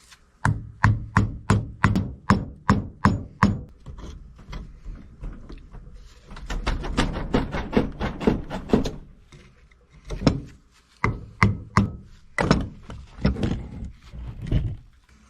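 A hammer striking a chisel to cut an old rubber cutlass bearing out of its housing: several runs of quick blows, about three a second.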